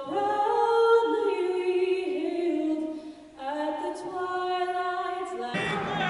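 A woman singing the national anthem a cappella into a microphone, holding long notes in two phrases with a short break about halfway. Crowd noise comes in near the end.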